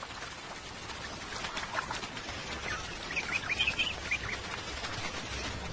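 Short, high chirping animal calls, a quick run of them about three to four seconds in, over a steady low outdoor background.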